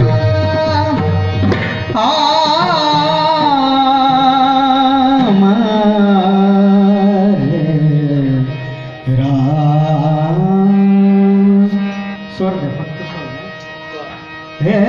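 Man singing a Marathi Warkari devotional tune (chal) with instrumental accompaniment. He holds long notes that glide and waver in pitch, and the sound drops briefly in the middle and again near the end.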